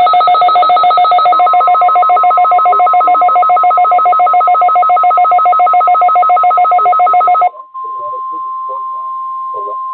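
A loud, rapidly pulsing two-pitch electronic alarm cuts off suddenly after about seven and a half seconds. Beneath it, from about a second in, the steady NOAA Weather Radio 1050 Hz warning alarm tone sounds. That tone carries on alone and quieter until near the end.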